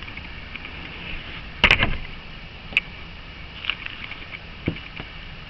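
A few knocks and clicks as a plastic vacuum switching valve and its rubber hose are handled and fitted by hand, the loudest a little over one and a half seconds in and a sharp click near three seconds in.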